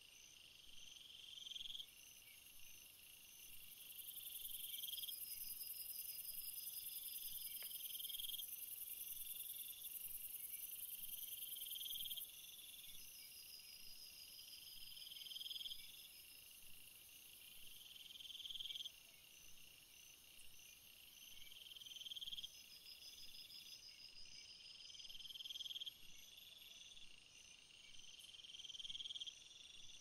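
Crickets and other insects chirping in a field: a chirping trill that swells and then stops about every three and a half seconds, over a steadier high-pitched buzz that is loudest during the first third or so.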